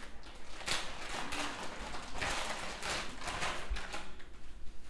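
Rustling and handling noises as a pair of motorcycle riding gloves is taken out and handled, with several short scrapes and crinkles.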